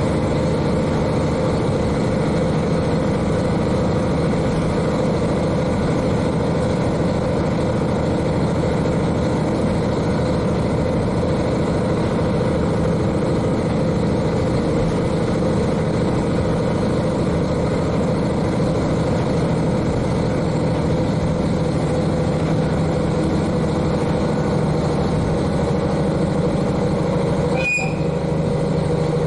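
The N-DMF13HZI diesel engine of a KiHa 40 railcar runs steadily, heard from directly above it inside the car along with the running noise of the train. A single short click comes near the end.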